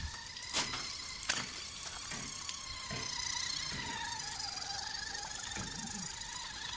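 Whine of a WPL RC truck's small electric motor and gearbox as it drives, a steady high tone that wavers a little in pitch and grows louder about three seconds in, with a couple of sharp clicks in the first second and a half.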